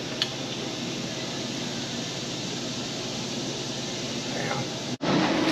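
Steady rushing background noise with a faint low hum, and one light click just after the start; it cuts off abruptly near the end.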